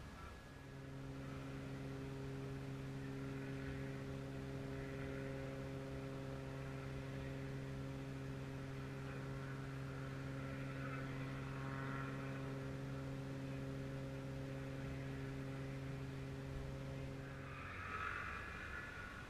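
A steady machine hum at one even pitch, starting about a second in and cutting off near the end, followed by a short hiss.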